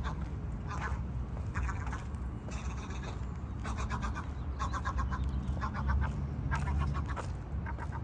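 A gull's staccato alarm calls, short bursts of rapid 'ha-ha-ha' notes repeated about once a second, given by a parent defending its chicks. A steady low rumble runs underneath.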